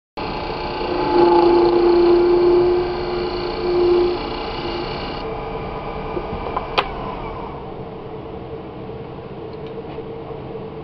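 Wood lathe running with a chisel cutting the spinning wooden pipe blank, a loud steady scraping tone for the first few seconds. About five seconds in the motor is switched off and the lathe coasts down, with one sharp click near the seven-second mark.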